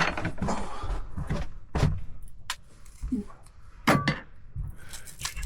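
A series of knocks and clinks, about half a dozen in a few seconds, of utensils and things being handled in a yacht's galley. The loudest knock falls near the end.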